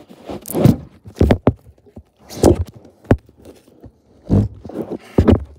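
Handling noise from a phone being gripped and turned around: a string of loud, irregular rubs and bumps of fingers against its microphone.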